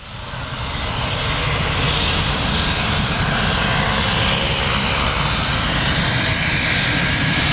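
Pilatus PC-12's single Pratt & Whitney Canada PT6A-67B turboprop engine running steadily, a continuous turbine hiss and propeller noise that rises over the first two seconds and then holds.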